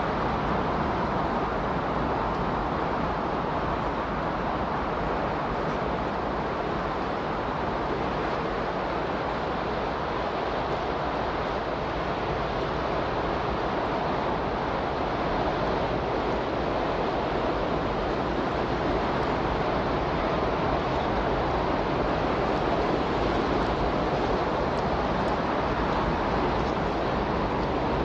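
Steady rushing noise, like surf or wind, with no distinct events; the level swells slightly in the second half. It is the masking sound bed of a subliminal audio track.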